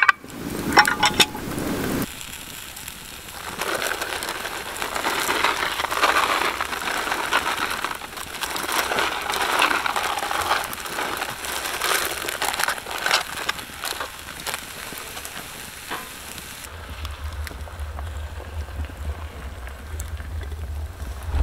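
A cast-iron Dutch oven lid knocks a few times about a second in as it is lifted off. Then ingredients are dumped from plastic zip-top bags into the hot pot, the bags crinkling and rustling and the food sizzling lightly, and a liquid egg mixture is poured in near the end.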